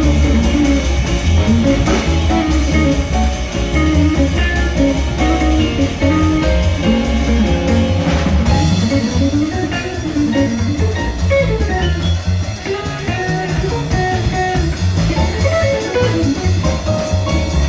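Live jazz combo playing an instrumental passage: a guitar line carries the lead over walking bass and drum kit.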